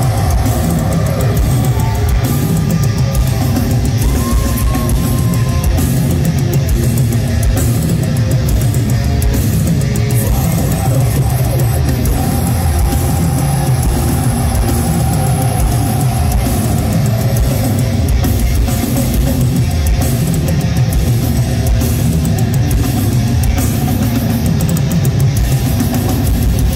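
Deathcore band playing live at full volume: distorted electric guitars and drum kit in a dense, steady wall of sound, heard from within the audience.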